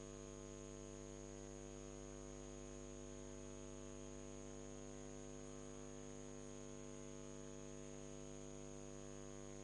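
Faint, steady electrical mains hum and buzz with light hiss, unchanging throughout.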